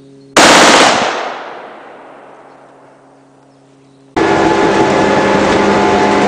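A short burst of automatic fire from a FAMAS 5.56 mm assault rifle, so loud it overloads the recording, with its echo dying away over about three seconds. About four seconds in, a loud steady drone begins.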